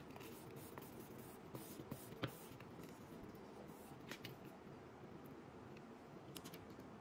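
Faint handling sounds of a phone and its protective film: scattered small clicks, taps and light scrapes as a card smooths the film and a backing layer is peeled off, over a low steady room hum.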